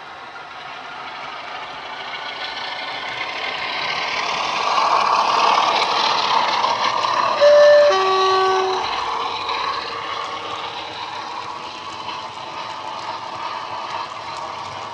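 Model Class 47 diesel locomotive's DCC sound decoder (Coastal DCC Class 47/4 sound file) playing through two small Megabass speakers. The diesel engine sound swells as the model draws close, then fades. About halfway through it sounds a two-tone horn, a short higher note followed by a longer lower one.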